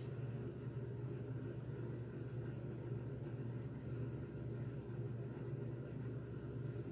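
Steady low hum of room noise with nothing standing out from it.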